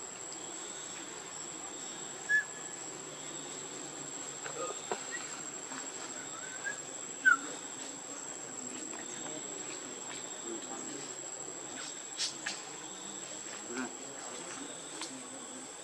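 A steady, high-pitched insect drone, with a few short high chirps and some faint clicks over it.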